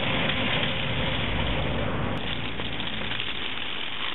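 Small plastic wheels of a toy doll stroller rolling and rattling over a concrete sidewalk: a steady gritty noise with a low rumble underneath.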